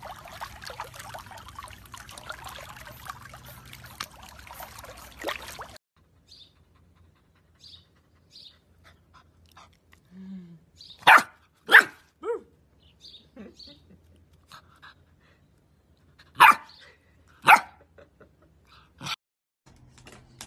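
A dog barking: four loud, sharp barks in two pairs about five seconds apart, with a few fainter yips between. Before them, a few seconds of steady background noise.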